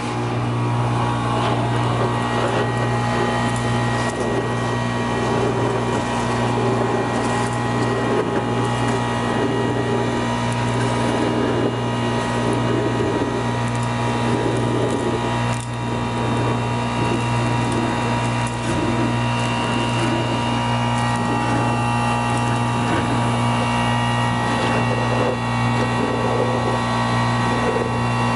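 Industrial vacuum running steadily at full suction with a constant low hum, drawing Portland cement powder through a 2-1/2-inch hose from a steel drum. The powder rushing into the hose adds an uneven rushing sound and scattered ticks.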